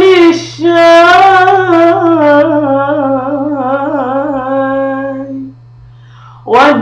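A woman singing long, wavering wordless notes. She breaks off about five and a half seconds in and comes back in near the end, over a faint steady low hum.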